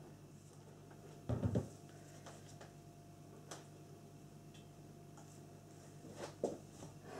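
Quiet room tone with a faint steady hum, broken about a second in by two dull thumps of handling on a wooden worktable, with a few faint ticks and clicks near the end.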